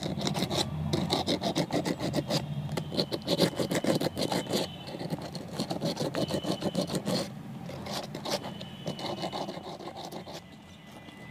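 Emery paper rubbed quickly back and forth over the rusty threaded steel shaft of a Maruti Suzuki wiper linkage pivot, a fast scratchy rasping of many short strokes, sanding off the rust that has seized the washer on the shaft. The strokes ease off and grow lighter in the last few seconds.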